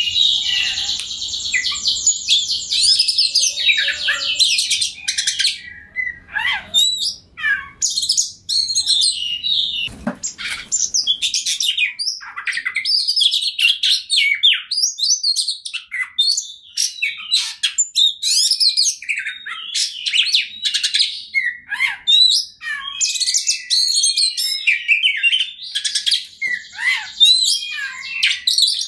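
Oriental magpie-robin singing continuously, a long, varied song of loud, rapid chattering trills and clear whistled notes. A fast buzzing trill opens the song and comes again near the end.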